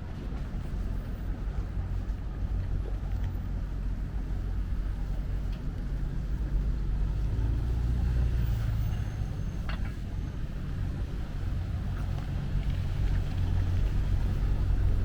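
Steady low engine rumble with a faint hum, from motor traffic or idling boats, with a brief click about ten seconds in.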